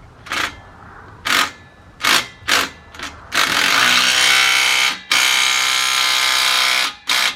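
A power tool driving the exhaust's mounting bolts: several short trigger pulls, then two longer runs of about one and a half and two seconds, then three quick pulls near the end.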